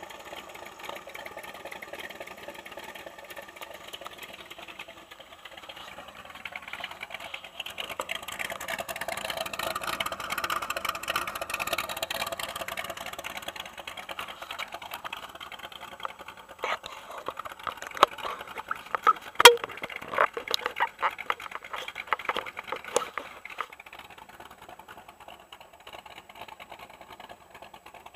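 Boss Hoss's 8.2-litre Chevrolet V8 idling, heard muffled and lacking bass, growing louder for a few seconds in the first half. Through the middle comes a run of sharp knocks and clicks as the camera and its mount are handled.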